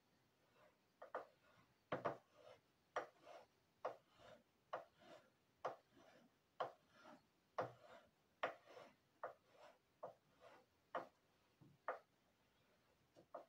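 Small metal scraper rasping over the surface of a wax carving block in short, quick strokes, about two a second, smoothing the wax.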